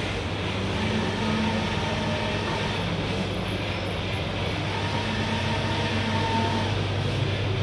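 Goldtech Megajet 3304 KH large-format solvent flex printer running as it prints a flex banner: a steady machine hum with an even whirr over it.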